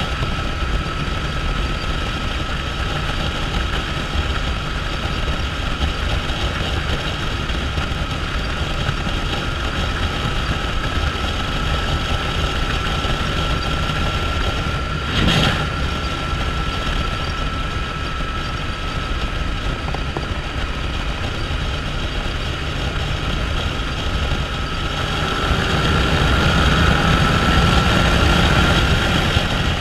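Yamaha motorcycle engine running at road speed with a steady high tone and a hiss of tyres on wet pavement. A brief rush of noise comes about halfway through, and near the end the engine grows louder, its pitch rising a little as it pulls harder.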